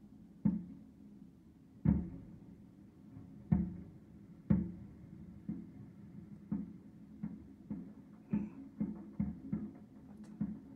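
A series of dull thumps over a low steady hum. They are spaced irregularly at first and settle into about two a second from about halfway through.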